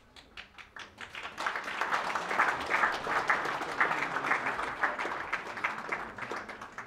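Audience applauding: a few scattered claps, then a fuller round of applause from about a second and a half in, thinning out near the end.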